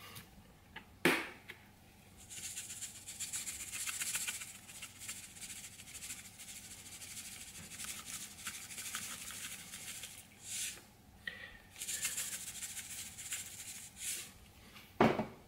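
Seasoning shaker shaken over an air fryer basket, the dry seasoning rattling inside it in long stretches of quick shakes. There is a sharp click about a second in and a short knock near the end.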